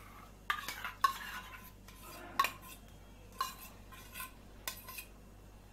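Metal spoon scraping and clinking against a steel bowl as a thick curd marinade is scraped out onto a plate: about six sharp, ringing clinks, unevenly spaced, with quiet scraping between them.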